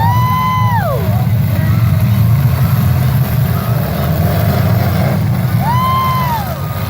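Demolition derby cars' engines running in a heavy, steady rumble. Twice, at the start and again near the end, a high tone rises, holds for about a second and falls away over it.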